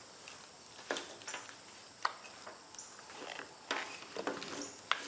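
Scattered light clicks and knocks with some rustling from hands handling a car wiring harness and its plastic connectors.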